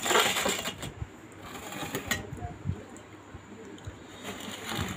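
Steel plate and bowl handled while momos are picked up: a loud rustling scrape at the start, scattered light clicks of metal, and another rustle near the end.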